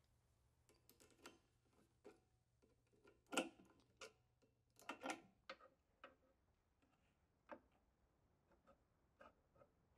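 Faint scattered metal clicks and taps from a hollow mortising chisel and auger bit being set into a benchtop mortiser's chuck and tightened with a key; the loudest knocks come about three and five seconds in.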